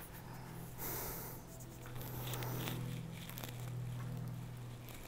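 Faint rustling and light taps of small plastic model scenery pieces being handled and set onto a model railway diorama, over a steady low hum.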